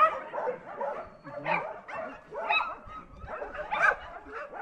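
Dogs barking and yipping: short, high, arching calls coming irregularly, a few every second or so.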